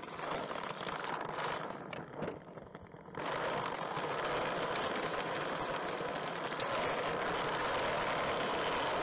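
Skateboard wheels rolling over brick pavers, a steady gritty rolling noise. A few sharp clacks come in the first two seconds, and about three seconds in the rolling noise gets louder and stays steady.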